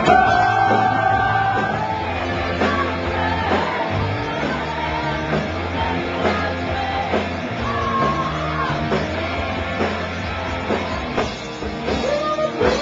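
Live rock band playing loud and steady on electric guitars, bass and drums, with a singer's voice over it.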